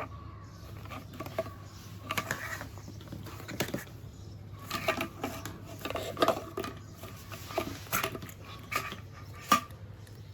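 Irregular light clicks and clatter of small hard objects being handled, over a steady low hum.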